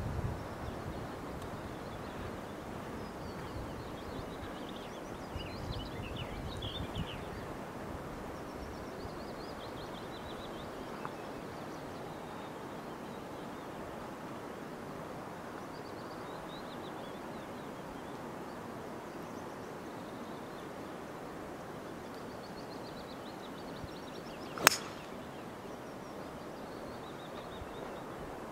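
Golf driver striking the ball off the tee: one sharp crack near the end, standing well above a quiet steady outdoor background.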